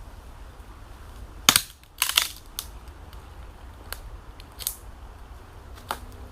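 Dry sticks snapping in a few sharp cracks. The loudest come about a second and a half and two seconds in, followed by lighter snaps.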